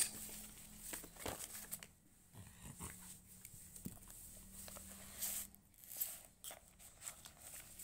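Faint scratching of pencil strokes on paper, in short irregular bursts, with soft handling noises.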